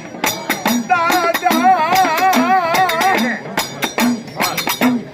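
Gujarati folk devotional music: quick, steady rattling and jingling percussion over a low beat that bumps about once a second. About a second in, a long wavering high note is held for some two seconds.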